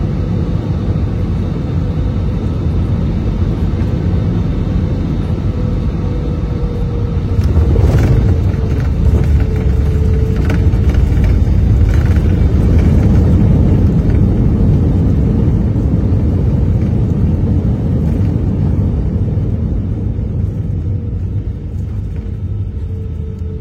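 Airbus A320-200 cabin noise on landing: a steady rumble with a faint engine whine, then a jolt with a few knocks about seven and a half seconds in as the wheels touch down. After the touchdown the rumble is louder during the rollout, then eases off near the end.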